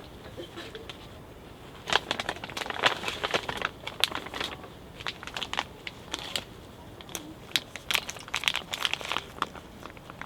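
Crinkling and crackling, as of something being crumpled or handled, in irregular clusters of sharp crackles, busiest about two seconds in and again near the end.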